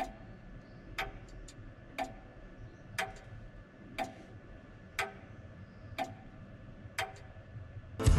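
Clock ticking steadily, one tick each second, with a few fainter clicks in between.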